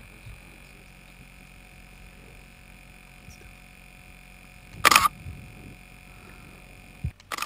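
A short, loud burst of shutter clicks from the DSLR on a remote-controlled camera rover, about five seconds in, with a briefer one near the end, over a faint steady hiss with a thin high tone.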